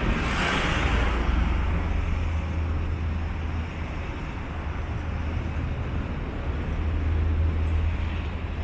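Street traffic noise with a steady low rumble; a vehicle passes close by in the first second or so.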